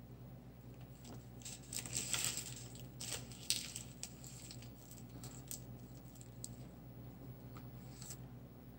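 Faint scattered clicks and rustles, the clearest around two and three and a half seconds in, over a steady low hum.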